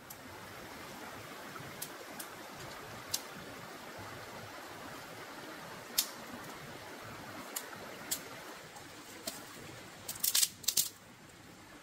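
Steady rushing of a shallow forest stream, with scattered sharp clicks and knocks and a quick cluster of louder clicks about ten seconds in, after which the water sound drops away.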